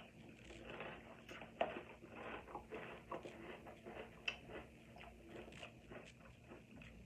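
A person chewing a mouthful of crunchy Kit Kat chocolate cereal: many small irregular crunches, with one sharper crunch about a second and a half in.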